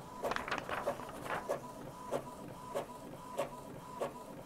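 Epson EcoTank ET-2720 inkjet printer printing, its print head carriage sweeping back and forth with a regular click about every two-thirds of a second over a faint steady whine, with quicker clicks in the first second. It is running full solid-colour pages at high quality to flush clogged nozzles.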